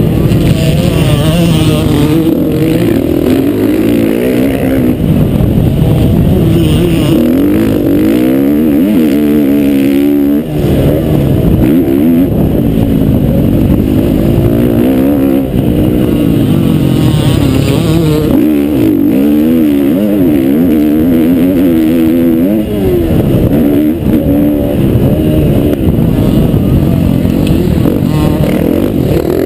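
Motocross bike engine at race pace, its pitch rising and falling over and over as the rider accelerates, shifts and backs off around the track.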